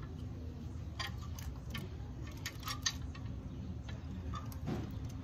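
Scattered small metallic clicks and clinks as gloved hands work on the exposed rocker gear and valve-cover gasket of a diesel engine's cylinder head, over a steady low hum.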